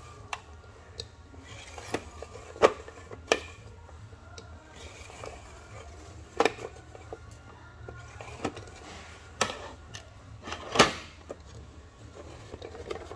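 Hard plastic clicking and knocking as a hand presses and twists the plastic lid of a VIP Pets hair-salon toy canister. There are about nine sharp clicks at irregular times, the loudest about two and a half seconds in and about eleven seconds in, over a low steady hum.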